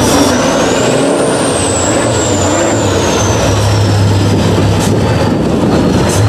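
Six-wheel-drive off-road trial truck's diesel engine working hard under load as the truck climbs a steep dirt slope, with a high whistle that rises about a second in and then slowly falls away.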